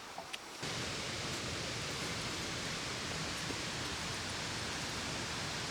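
Steady rushing of flowing creek water, starting abruptly under a second in. A few faint clicks come just before it.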